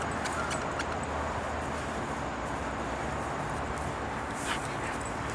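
Steady outdoor background noise, a continuous rumble and hiss with a faint low hum, with a few faint clicks.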